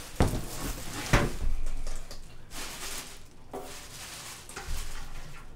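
Plastic wrapping rustling and crinkling around a large telescope tube as it is lifted out of a cardboard box, with two sharp knocks in the first second or so.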